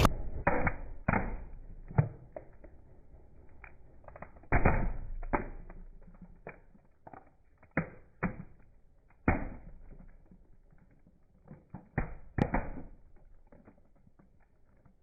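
Irregular sharp cracks and pops, a dozen or so loud ones among many small ticks, as objects are crushed under a car tyre. The sound is dull and muffled, with no treble.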